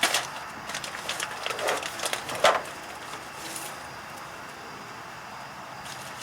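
A run of light clicks and rattles from parts and tools being handled during work on the truck, the loudest a sharp click about two and a half seconds in, then only a faint steady hiss.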